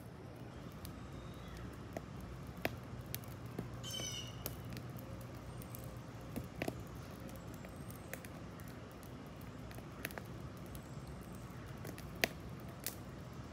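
Wood campfire crackling in a steel fire ring, with scattered sharp pops. A short chirping bird call about four seconds in.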